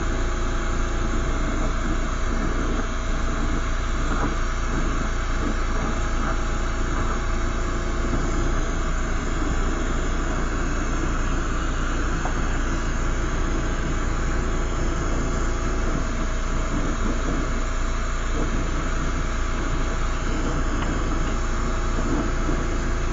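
Lampworking gas torch burning with a steady rushing noise.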